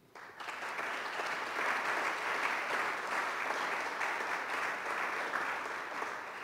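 Audience applauding at the end of a talk: many people clapping steadily, starting suddenly at the beginning and dying away near the end.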